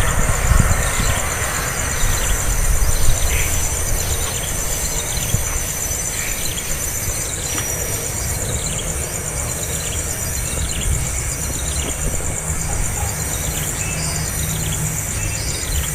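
Steady shrill insect drone with short high chirps repeating about once a second, over a low rumble.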